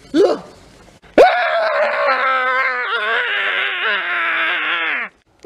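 A man's long, loud scream that starts abruptly about a second in and lasts about four seconds, its pitch sliding down near the end. A brief vocal cry comes just before it.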